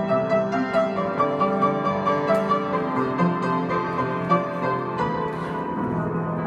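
Background music led by piano, with notes struck in a steady, even pulse.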